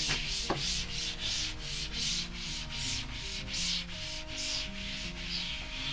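A cloth rubbing back and forth over the back of a shower wall board, wiping it down with white spirit in quick, even strokes of about three a second. Faint background music with held notes runs underneath.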